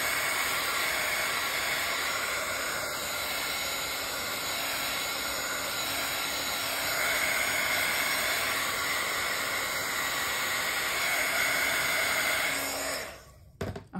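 Craft heat tool blowing steadily to dry the page, with a faint hum and whine over the rush of air, switched off about a second before the end.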